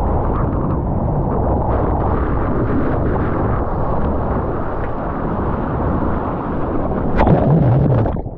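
Roar of a breaking wave and whitewater rushing past a GoPro in its waterproof housing as the surfer rides through the barrel. The noise is continuous, with a louder splash about seven seconds in.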